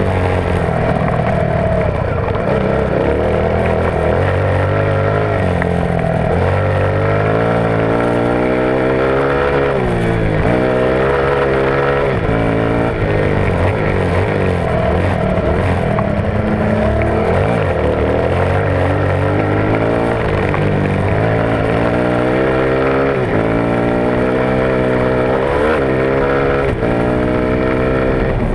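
Small-displacement dirt bike engine, heard from a camera mounted on the bike, revving hard as the rider races. Its pitch climbs and drops over and over as the throttle is opened and closed and the gears change, with rushing wind over it.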